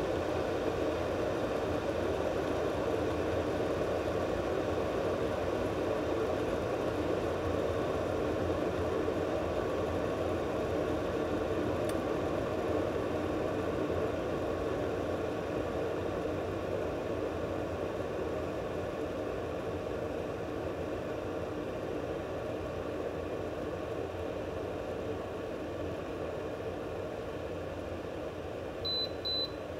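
Water in an OXO electric pour-over kettle heating close to the boil, a steady rushing rumble that eases slightly toward the end. Near the end the base gives two short high beeps, its signal that the set temperature has been reached.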